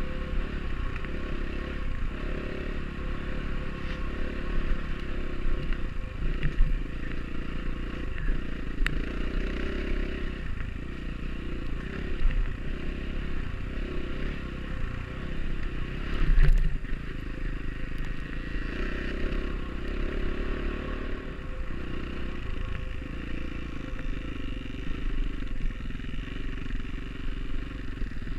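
Enduro dirt bike engine running under load on a trail ride, its pitch rising and falling with the throttle, with clattering and a few knocks from the rough ground; the loudest thump comes a little past halfway.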